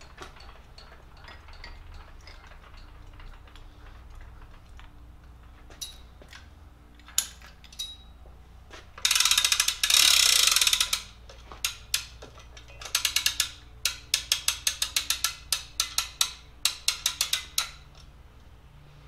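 Ratcheting hand winch of a Sky Hook lifting crane being cranked: a few single clicks, then a fast two-second run of rapid ratcheting about halfway through, then evenly spaced ratchet clicks at about four a second, over a low steady shop hum.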